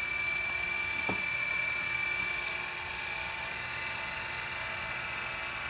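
Refrigeration vacuum pump running steadily with a constant high whine, pulling a vacuum on a rebuilt AC condenser's refrigerant lines.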